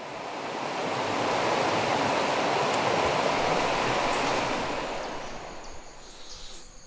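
Water rushing over a small rocky cascade in a mountain stream, a steady hiss. It swells in over the first second and fades away over the last two seconds.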